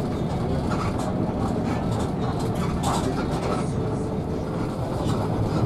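Cabin noise of an intercity coach bus on the move: steady engine and road noise with scattered rattles and clicks.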